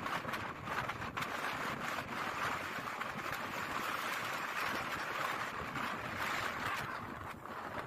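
Strong blizzard wind blowing across an open icy road, a steady dense hiss with a few faint ticks, easing slightly near the end.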